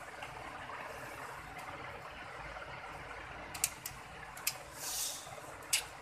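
Hands handling the plastic underside of an HP 8460p laptop: a few light clicks and taps from about three and a half seconds in, with a brief rub near five seconds, over a steady faint background hiss.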